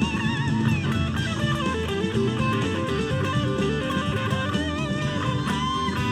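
Electric guitar lead on a Fender Stratocaster, holding notes with wide finger vibrato and then running through quick single notes, over a rock backing track with bass and drums.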